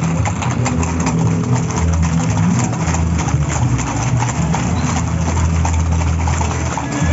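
Horses' hooves clip-clopping on a paved street as the mounted horses shift and step about, with many quick irregular taps, over a steady low hum.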